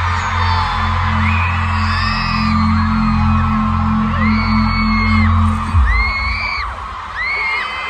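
Stadium concert crowd of thousands screaming and whooping in high-pitched cries over deep, pulsing bass from the stadium sound system. The bass stops with a thump about six seconds in, and the screaming carries on.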